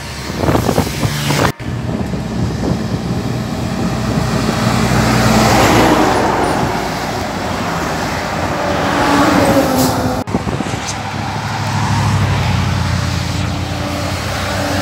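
Heavy diesel trucks passing on a highway: engines running and tyre noise swelling and fading several times as each truck goes by.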